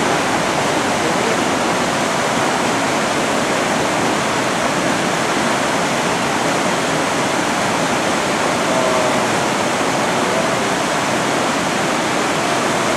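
Whitewater rapids rushing steadily: fast river water churning over rocks.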